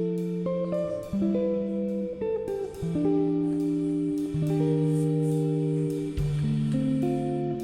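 Background music: plucked guitar playing a slow melody over sustained bass notes.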